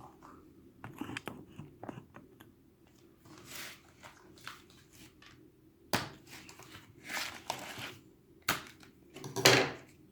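Toy packaging being cut and handled: scattered snips and clicks with short crinkling rustles of plastic and cardboard. There is a sharp click about six seconds in and a louder rustle near the end.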